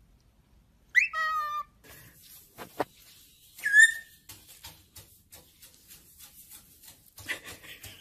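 A cockatiel's whistled call about a second in: a note that rises and then holds steady for about half a second. A black-headed caique then hops on a wooden dresser top, making a run of light irregular taps and clicks, with one short falling whistle a little before the middle.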